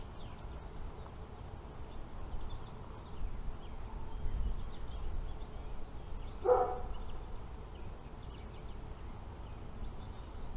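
Birds chirping faintly and intermittently over a low steady rumble, with one short voiced sound about six and a half seconds in.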